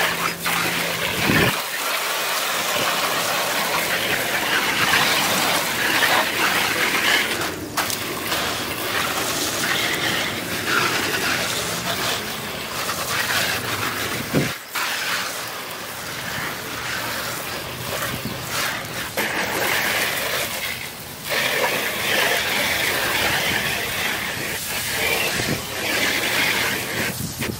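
Garden hose spray nozzle jetting water against the plastic walls and doors of a shed: a steady hiss of spray that breaks off briefly a few times.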